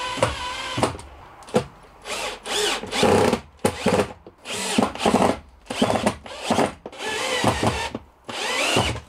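Cordless drill run in a dozen or so short bursts, its motor whine rising and falling with each trigger pull, working into the metal mounting panel beside a battery-to-battery charger.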